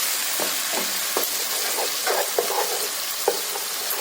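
Fried onion and chopped tomato sizzling in hot oil while being sautéed, with a steady hiss and a spatula scraping the pan in short strokes now and then.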